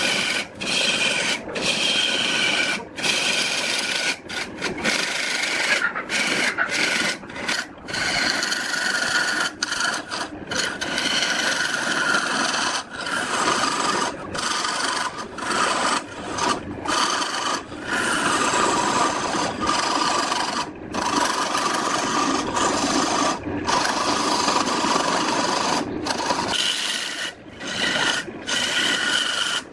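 Turning tool cutting into a spinning glued-up wooden blank on a wood lathe: a steady scraping hiss of shavings coming off, broken by many short gaps.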